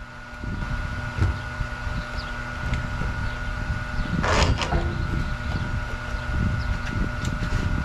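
Steady low outdoor rumble with a few faint steady hums, and one short sharp knock about halfway through.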